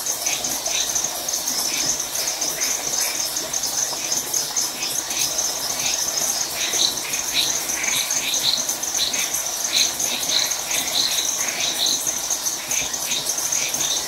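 Night chorus of crickets and frogs: a steady high insect trill with many short frog calls repeating over it, thicker in the second half.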